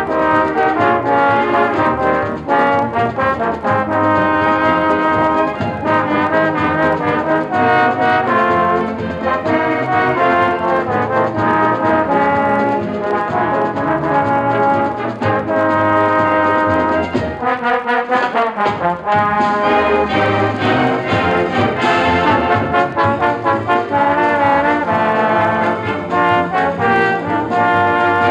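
High school wind band playing from a 1965 LP recording, with brass prominent in sustained chords and moving lines.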